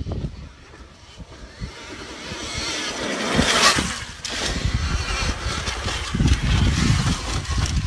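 Alta Redshift MX electric dirt bike riding past on a dirt trail, with no engine exhaust note: the rush of motor, chain and knobby tyres swells to its loudest about three and a half seconds in, then turns to a low rumble as the bike rides on.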